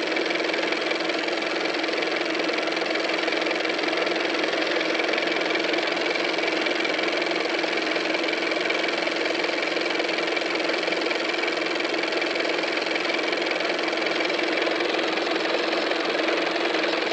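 Old film projector running, a steady mechanical whir and clatter that does not change.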